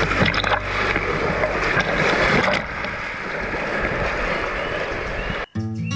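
Whitewater rapid churning and splashing right around a camera at water level. The rush is heaviest and choppiest for the first couple of seconds, then settles into a steadier roar. It cuts off about five and a half seconds in as acoustic guitar music comes in.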